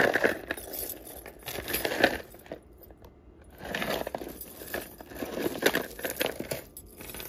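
Crinkling and rustling as a bag of vintage costume jewelry is handled, in several short bursts, the loudest right at the start.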